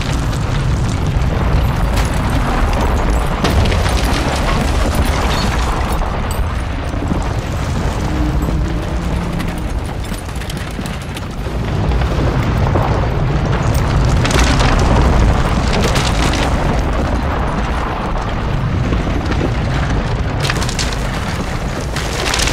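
A deep, continuous rumble with scattered cracks and knocks over it, like a building shaking and cracking.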